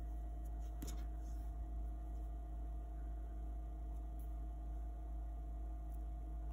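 Steady low electrical hum, with a faint steady higher tone above it and a faint click about a second in.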